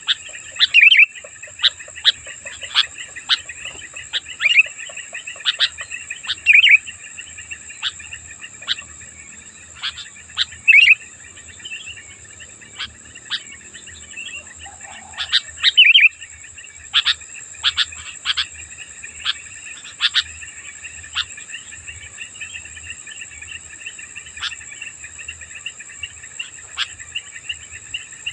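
Sooty-headed bulbul (kutilang) calling: short, sharp chirps at irregular intervals, sometimes in quick runs, over a steady high insect buzz.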